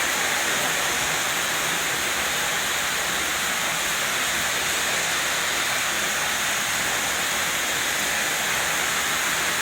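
Fully automatic carpet washing machine running, with a steady rush of water spraying.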